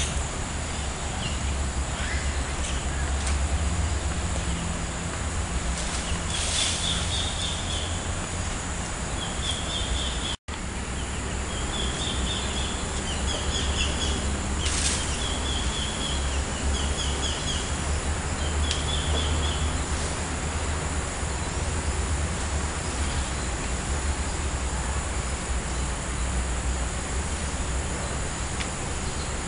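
Outdoor ambience with a bird calling in short, quickly repeated chirped phrases from about six to twenty seconds in, over a steady low rumble and a steady high hiss. The sound drops out for an instant about ten seconds in.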